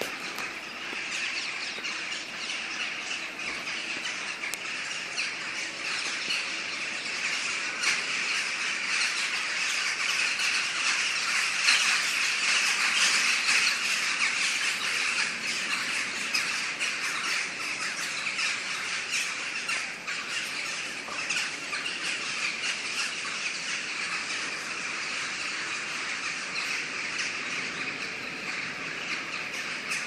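A large flock of birds wheeling overhead, many calling at once in a dense, continuous chatter that swells louder about a third of the way in and then settles.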